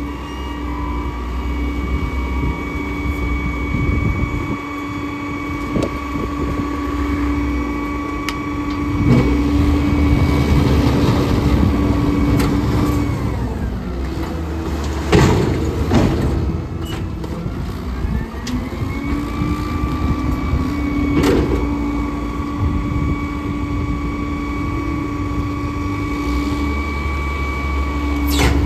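Diesel engines of a rear-loader garbage truck and a front-end loader running, with a steady mechanical whine that drops away about halfway through and comes back a few seconds later. Midway, the loader's bucket dumps debris into the truck's rear hopper with a loud clatter.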